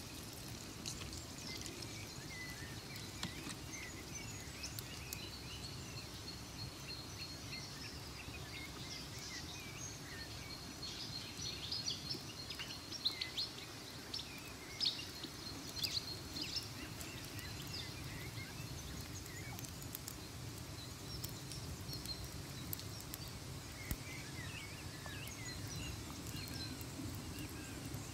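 Autumn nature ambience: birds chirping in short notes over a steady low rumble, with faint scattered clicks. The chirping thickens into a busier run about halfway through.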